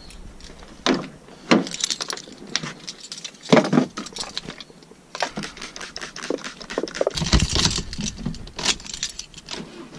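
Keys jangling, with sharp clicks and knocks as a van's door is opened and a key is put into the ignition. A low rumble starts about seven seconds in.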